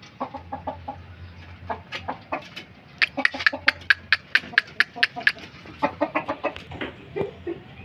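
Bangkok rooster clucking in short sharp notes, scattered at first, then a quick run of about five a second midway and a few more near the end.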